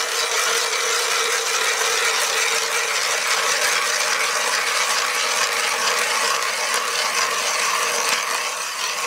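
Hand ice auger's blades cutting into thick river ice as the crank is turned, a steady scraping noise. The blades have only been touched up with a file and cut heavily.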